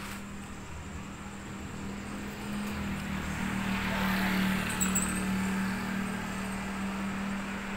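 Street traffic: a vehicle passes, its noise swelling about halfway through and easing off, over a steady low hum.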